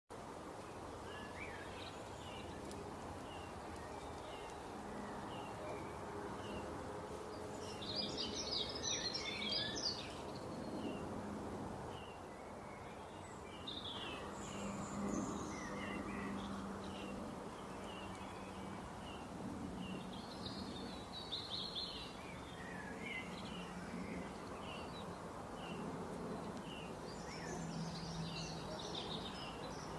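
Several birds chirping and singing: short repeated chirps throughout, with denser bursts of song about eight seconds in, around the middle and near the end, over a steady low background hum.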